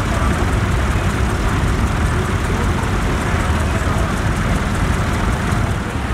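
An engine running steadily with a low rumble, with people's voices in the background.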